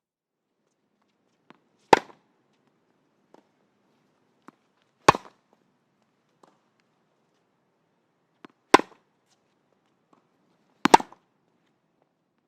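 Tennis ball struck four times, each a sharp pop a few seconds apart. The last one comes as a quick double hit, and a faint tick comes just before some of the hits.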